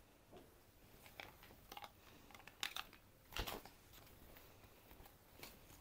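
Faint rustling of a cloth garment being gathered up and folded by hand, a few soft brushes and light clicks, the loudest about three and a half seconds in.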